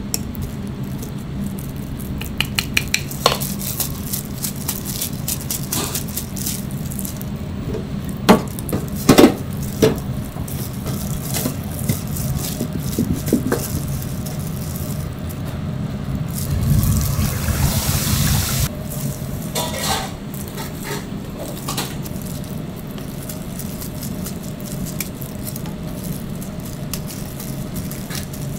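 Kitchen handling sounds while pork cutlets are breaded: a scoop and gloved hands working through flour and breadcrumbs in stainless steel trays, with scattered clinks and knocks of utensils on metal over a steady low hum. Two sharp knocks come about a third of the way in, and a hiss of about two seconds rises past the middle.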